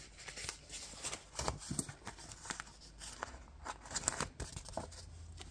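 Faint crinkling of a sticker sheet and small irregular clicks and scrapes as a planner sticker is peeled off the sheet with a slim metal tool.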